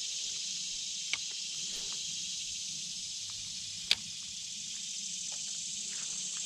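Steady high-pitched outdoor hiss, with two short sharp clicks: one about a second in and a louder one just before four seconds.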